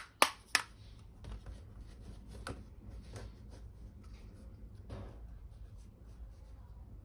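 Miniature plastic toy pieces being handled: two sharp clicks in the first second, then a run of faint, irregular taps and clicks.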